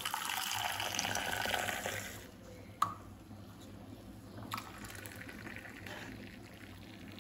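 Milk poured in a thin stream into a steel bowl of coffee powder for about two seconds. Then come a couple of light metal clinks as the steel cups are handled, and a quieter pour of the coffee back into a steel tumbler near the end.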